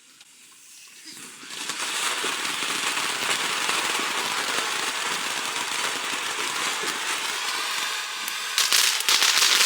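Consumer ground firework going off: about a second in it starts a steady hissing, crackling spray that runs for several seconds, and near the end it gives a quick series of sharp, loud bangs.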